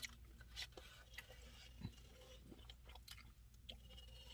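Faint mouth sounds of someone eating ice cream: scattered small clicks and smacks, with no talking.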